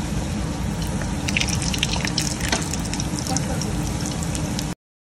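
Spring rolls deep-frying in hot oil in a wok: a steady sizzle, with a run of sharp crackling pops in the middle after another roll is slipped into the oil. The sound cuts off abruptly near the end.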